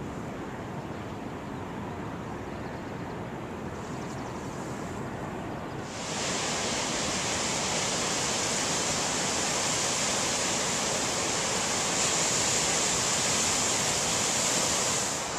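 Ocean surf breaking on a beach, a steady rushing noise. It starts as a lower rumble, and about six seconds in it turns into the louder, hissing wash of breaking waves and whitewater.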